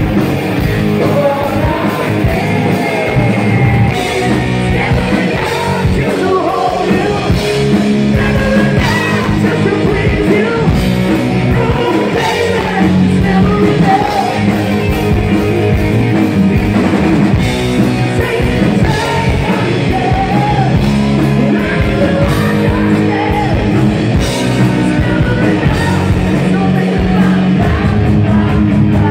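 Live heavy metal band playing: a male singer over distorted electric guitar and drums, loud and continuous.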